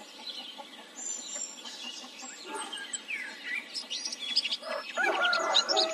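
Small songbirds chirping and twittering in a farmyard morning ambience: many short, high chirps over a steady hiss, growing busier and louder about five seconds in, when a longer, lower held call joins them.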